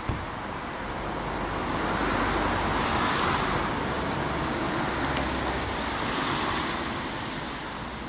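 Road traffic passing on a wet road: a hiss of tyres that swells over a couple of seconds, is loudest about three seconds in, then slowly fades. A brief click comes just at the start.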